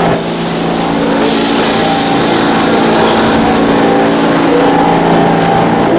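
Subway train running in a New York City subway station: a loud, steady hum with a rushing noise over it.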